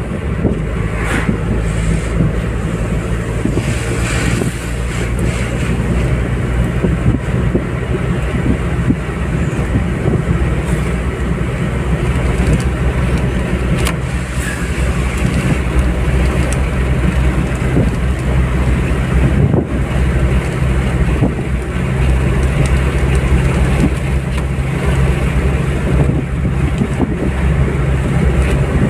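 Car driving steadily at highway speed: a continuous low engine drone with tyre and road noise.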